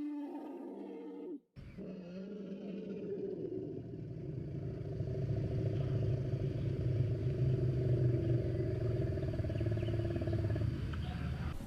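Sound effect meant as a woolly mammoth's call. An earlier call ends about a second in, and after a brief break comes one long, deep call that swells, holds and fades near the end.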